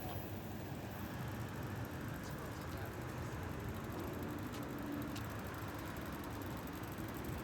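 Steady outdoor city background noise: a low hum of distant traffic, with faint voices and a few light clicks.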